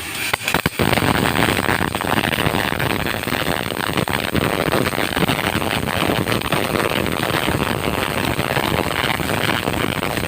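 MIG welding arc crackling and sizzling steadily, after a few short sputtering strikes in the first second.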